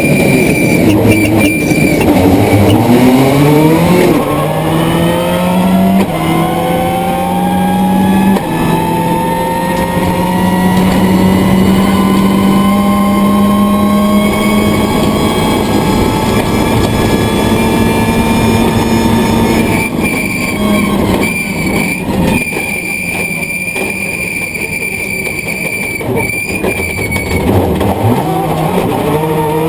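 Subaru Impreza WRC's turbocharged flat-four engine at full throttle, snapping up through the gears in quick shifts, then holding one long, slowly rising pull in a high gear. A steady high whine comes and goes, and near the end the revs drop and climb again.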